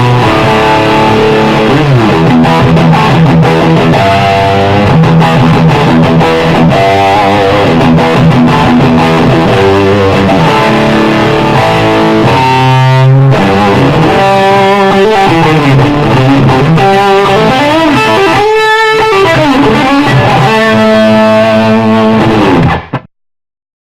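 Electric guitar played through an Expandora distortion pedal, a prototype reissue of the 1990s Expandora fuzz circuit: distorted chords and riffs with some bent notes. The playing cuts off suddenly about a second before the end.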